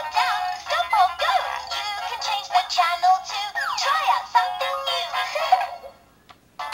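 Fisher-Price Laugh & Learn Click'n Learn Remote toy playing an electronic tune through its small speaker. The sound is tinny with sliding notes, and it cuts off about a second before the end.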